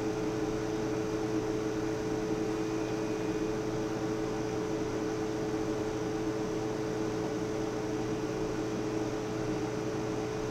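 Steady electrical hum of running equipment: two low, even tones over a constant hiss, unchanging throughout.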